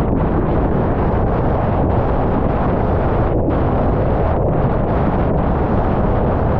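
Steady wind noise on a GoPro Hero 10's microphone, mixed with water rushing under a windsurf slalom board planing over choppy water.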